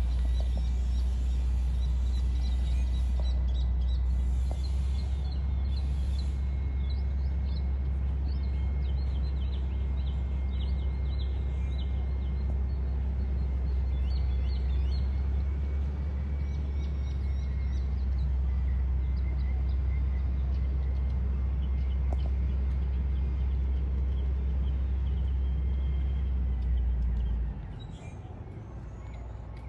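Steady low rumble with small birds chirping in short calls over it; the rumble drops away abruptly near the end.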